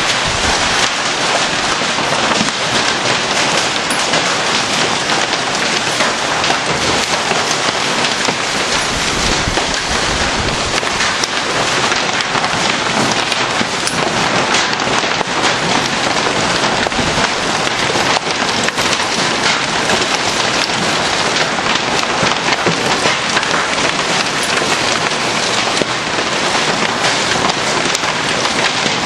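Heavy downpour of rain and hail hitting the ground and a parked car in a thunderstorm, a dense steady patter, with low rumbles of thunder about ten and seventeen seconds in.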